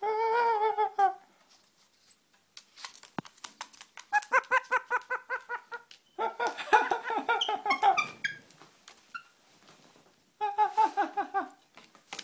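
Black-headed caique mimicking human laughter: four bouts of rapid, pitched, 'ha-ha-ha'-like pulses, the middle ones the longest.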